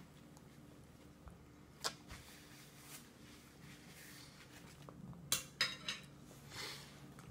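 Faint, sharp clinks of a toddler's spoon knocking against a stainless steel bowl: one about two seconds in, then a quick run of three near the end.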